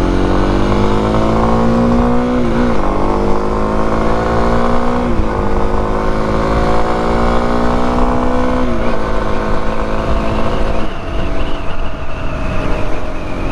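Kawasaki KLX250's single-cylinder four-stroke engine accelerating through the gears. The revs climb and drop at three upshifts, about 2.5, 5 and 9 seconds in, then settle to a steady cruise, with wind rumble on the microphone.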